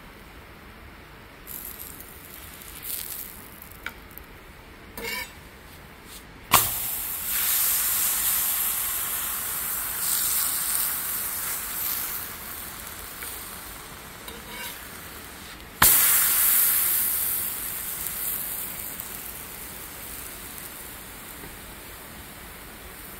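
Roti cooking on a hot tawa griddle with oil sizzling under it. The sizzle comes in two loud bursts, one about six seconds in and another just before sixteen seconds, each starting sharply and fading slowly.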